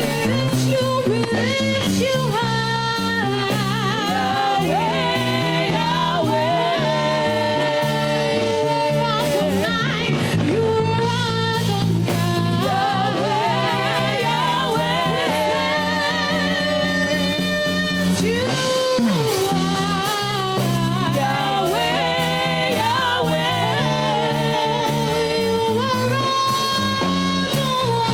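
Live gospel worship music: singing with a band accompaniment, the vocal melody held and bending over a steady instrumental backing.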